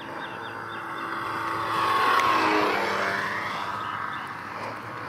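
O.S. 65LA two-stroke glow engine of an RC UFO model airplane making a flyby. It grows louder to a peak about two seconds in, then its pitch drops and it fades as the plane passes.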